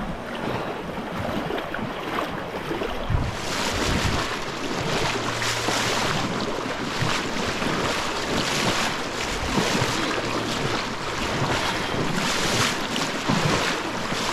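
Fast, shallow creek water rushing over a gravel bed close to the microphone, with a person splashing as he wades through it at the start. The rush gets louder about three seconds in.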